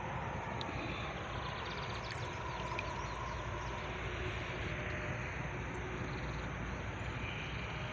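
Steady outdoor background noise with a low rumble, and a faint tone that falls slightly in pitch over the first few seconds.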